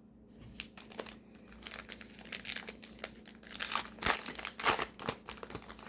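Wrapper of a baseball-card pack crinkling and tearing as it is ripped open, an irregular run of crackles and rustles that is loudest about four seconds in.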